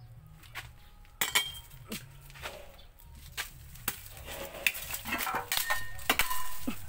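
Irregular sharp clinks and knocks starting about a second in, growing more frequent toward the end, some of them ringing briefly like metal or crockery.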